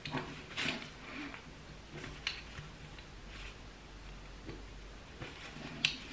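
A few faint metal clicks and light scrapes from a Vanagon CV joint's steel balls and cage being worked by hand into the outer housing, easing it into place.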